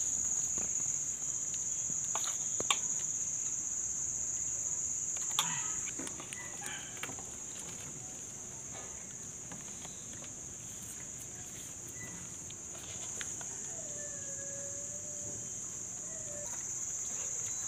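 Crickets chirping in a steady high-pitched drone, with a few soft knocks and clicks now and then.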